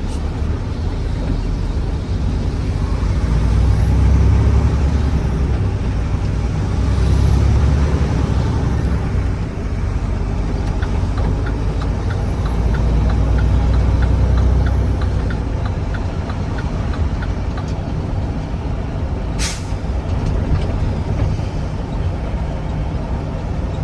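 Semi truck's diesel engine pulling in low gear, swelling three times with a faint turbo whistle rising and falling at each. The turn signal ticks about twice a second in the middle stretch, and a short sharp hiss of air from the air brakes comes late on.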